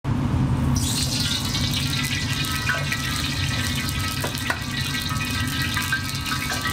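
Steady rushing roar of a commercial gas wok burner running under an oiled carbon-steel wok.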